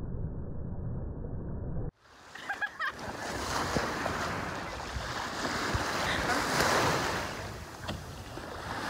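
Wind rumbling on the microphone, cut off suddenly about two seconds in; then small waves washing over the sand in shallow water, with wind.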